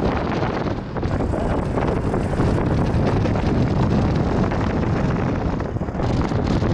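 Wind rushing over the microphone with road noise from a convertible driving with its top down, a steady low rumble throughout.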